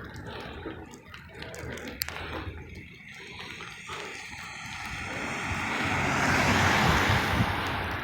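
Car passing on a slushy, wet snow-covered street: tyre hiss and engine rumble swell to their loudest about seven seconds in, then ease off.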